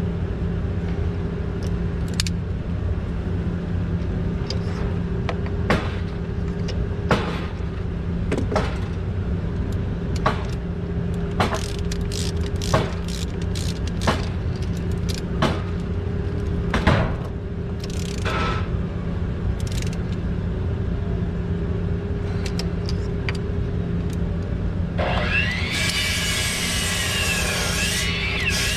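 A steady, engine-like drone with scattered sharp metallic clicks, roughly one every second or so, from hand tools tightening spark plugs into a forklift engine. Near the end a wavering higher-pitched whine joins the drone.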